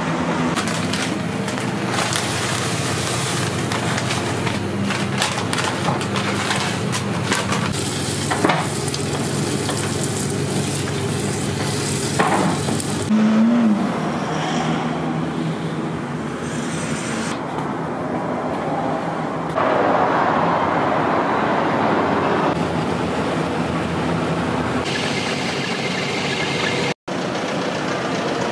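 Noodle-shop kitchen sounds in quick cuts: food sizzling and frying on the stove, with sharp clatters of utensils and a steady low hum. About 25 seconds in, this changes to road traffic.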